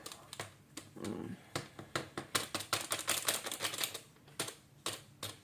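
Irregular run of light clicks and taps, several a second, from kitchen utensils and containers being handled while baking powder is added to pancake batter ingredients.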